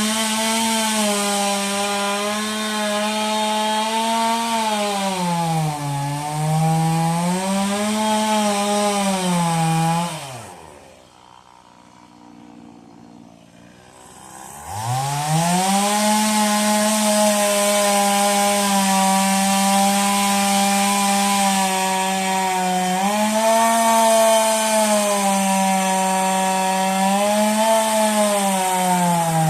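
Stihl chainsaw running at high revs and cutting wood, its pitch sagging now and then under load. About ten seconds in it falls away to a quiet idle. About four seconds later it revs back up to full speed.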